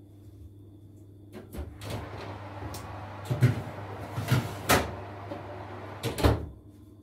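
A fan oven being loaded: the door opened and a metal pizza tray slid in, with several knocks and clatters over a steady rushing noise, and a heavier thump about six seconds in as the door shuts.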